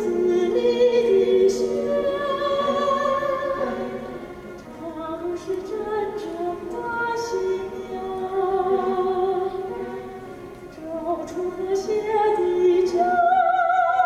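Singing with vibrato over instrumental accompaniment, a song from a live stage musical, in phrases with two short breaks.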